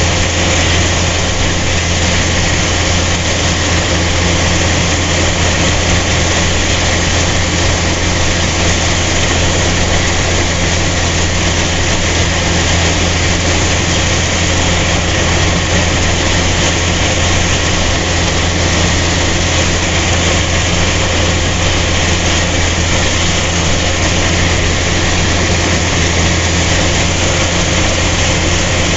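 A heavy engine running steadily at an even speed, with a strong low hum and a dense mechanical rush over it.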